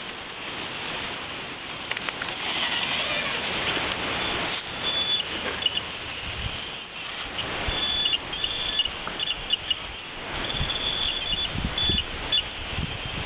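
Electric RC rock crawler's motor and gearbox whining in short, high-pitched bursts as it crawls over boulders, over a steady outdoor hiss with scattered low thumps.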